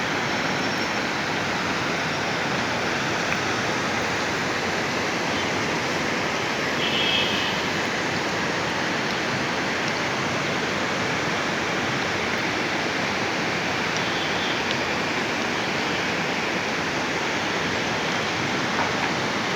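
Fast-flowing mountain river rushing steadily, a loud, even roar of water.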